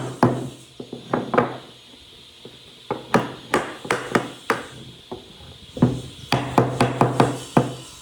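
Hammer blows on wood: three runs of quick strikes, a few a second, with short pauses between them.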